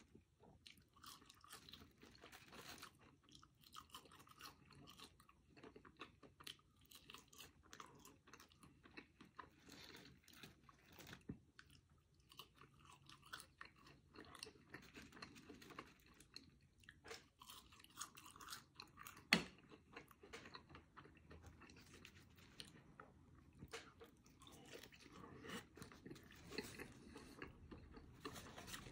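Quiet, close-miked chewing and crunching of a bacon cheeseburger and french fries, with many small wet mouth clicks and crackles. One sharper click stands out about two-thirds of the way through.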